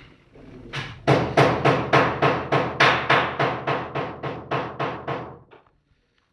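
Small toy drum beaten with a stick in a quick, even run of dry hits, about four a second, starting just under a second in and stopping about a second before the end.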